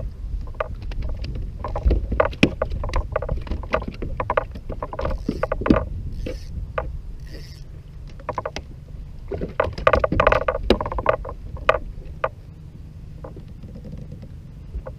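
Irregular clicks and knocks of gear being handled aboard a fishing kayak, thickest about ten seconds in, over a low steady rumble of wind and water, with a few short bursts of hiss in the middle.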